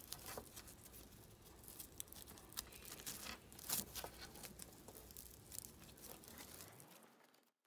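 Faint scratchy rustling and small crinkles of three-strand rope as its loose strands are handled and tucked over one, under one into the lay for a joining splice. The sound cuts off abruptly near the end.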